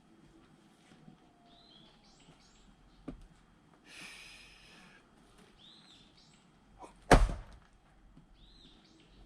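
A single loud blow splitting a round of firewood about seven seconds in, with a lighter knock of wood about three seconds in and a short rustle about four seconds in. A small bird chirps several times in the background.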